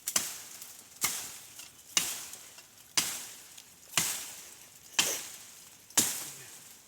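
Firewood being chopped with a hand-held blade: seven sharp blows, about one a second, each trailing off briefly.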